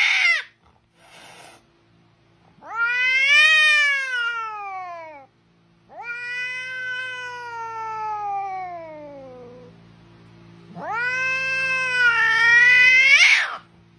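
A domestic cat meowing in long, drawn-out calls. A short call ends just after the start, then three long meows follow, each rising and then falling in pitch, the last with a sharp upward turn at its end.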